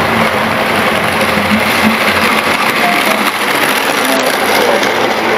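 Model train running along the track close by: a loud, steady whirring rumble of its electric motor and wheels.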